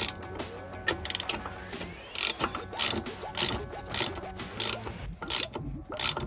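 Ratchet spanner clicking in short repeated strokes, about two a second, as it winds the threaded spindle of a bush press/pull sleeve tool to press a rear axle bush into place.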